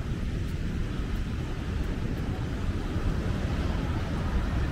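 Wind buffeting the microphone of a camera on a moving bicycle: a low, uneven rumble over a steady outdoor hiss.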